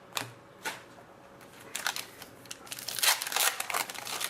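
Trading card pack wrapper crinkling as it is handled and torn open. A few separate crackles come first, then a denser, louder stretch of crinkling in the second half.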